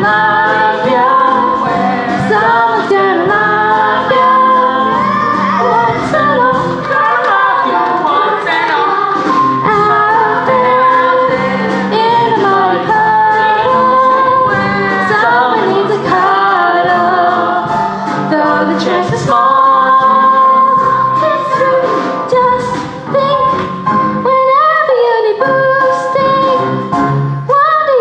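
A show tune sung with musical accompaniment, the voice's melody moving over steady backing.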